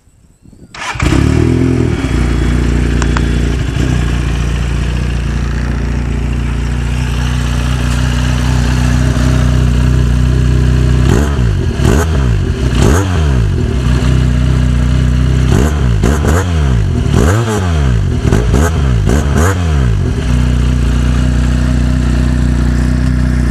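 400cc sports bike fitted with an Akrapovic exhaust: the engine starts about a second in and idles, is revved in a series of quick throttle blips roughly midway through, then settles back to idle.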